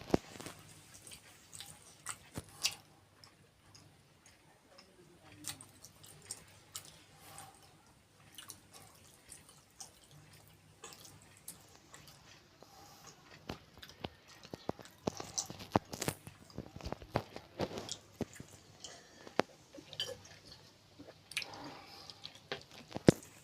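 Person eating kheer and puri: chewing and wet mouth sounds, with many irregular smacks and clicks, busier in the second half.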